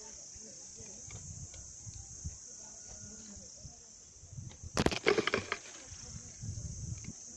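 Steady high-pitched insect chirring, with low irregular thuds of handling or footsteps on stone steps and one sharp knock about five seconds in.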